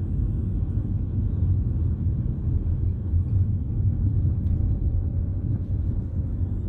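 Steady low rumble of a car being driven at city speed, heard from inside the cabin: engine and tyre noise with no distinct events.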